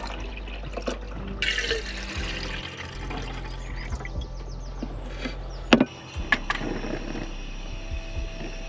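Water pouring briefly, with a few clicks and one sharp knock a little before six seconds in, the loudest moment, over background music.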